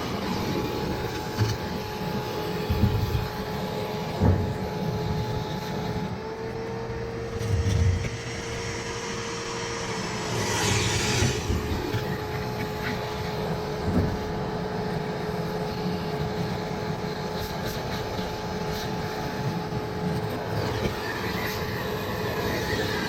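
Vacuum cleaner running steadily, its hum briefly rising in pitch mid-way, as it sucks dirt off a plugged condenser coil. Scattered knocks from the nozzle and arm against the unit, and a short hissy rush of air.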